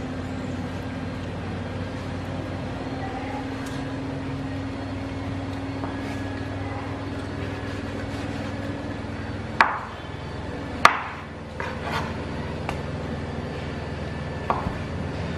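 Kitchen knife cutting a ripe mango on a wooden cutting board, with a few sharp knocks of the blade on the board about two-thirds of the way through. A steady low hum runs underneath.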